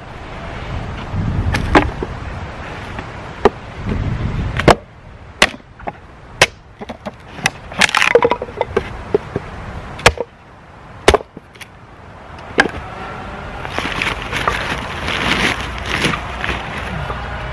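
Hatchet splitting a wooden board into kindling: a run of sharp wooden knocks and splitting cracks, about ten strikes a second or so apart, followed near the end by the clatter and rustle of split sticks being handled and laid down.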